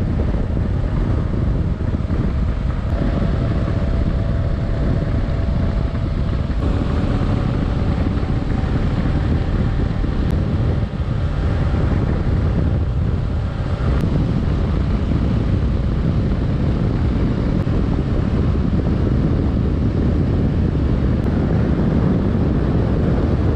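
Kawasaki KLR 650 single-cylinder motorcycle cruising at road speed, its engine drone mostly buried under steady wind buffeting on the microphone.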